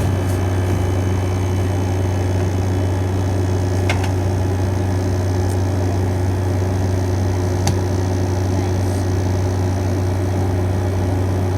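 Arctic King 5000 BTU window air conditioner running on cool: its fan blowing over a steady low hum from the GMCC rotary compressor. Two faint clicks sound about four seconds in and again near eight seconds.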